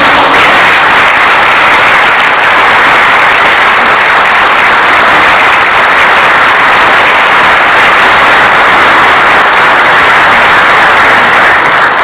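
Audience applauding steadily after a song ends, the sustained clapping fading away just after the end.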